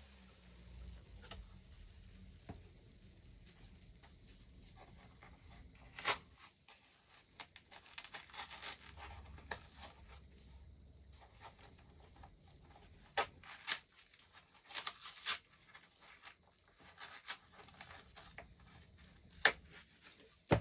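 Cardboard packaging being torn open by hand: scattered sharp rips and crinkles, with the loudest tear near the end.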